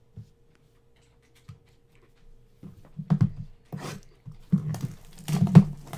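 Cardboard trading-card hobby box handled on a table: a run of irregular knocks, thumps and scrapes starting about two and a half seconds in, loudest near the end.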